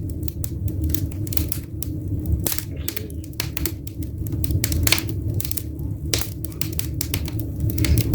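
Firewood crackling in a freshly lit fireplace: irregular sharp snaps and pops over a low steady rumble of the fire.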